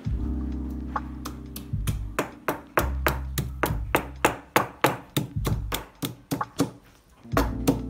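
Stone pestle pounding ginger in a heavy stone mortar: sharp knocks, a few at first and then several a second from about two seconds in. Background music plays underneath.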